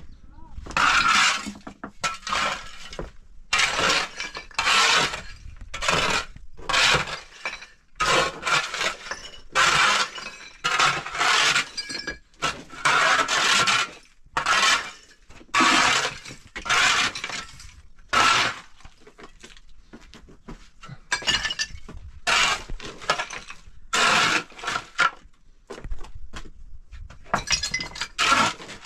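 Metal shovel blade scraping gritty rubble and dust across a hard floor in repeated strokes, about one a second, with a couple of short pauses.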